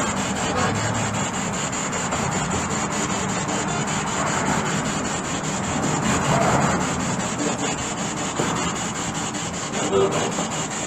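SB7 spirit box radio scanner sweeping rapidly through stations: a continuous hiss of static chopped into quick steps, with a few brief voice-like snatches of radio.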